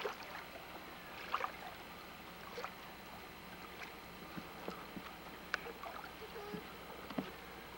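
Faint steady outdoor hiss with scattered small clicks and knocks, the sharpest a single click about five and a half seconds in.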